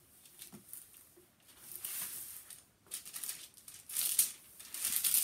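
Clear plastic film on a diamond painting canvas crinkling as fingers press and smooth it, in a few short rustling spells.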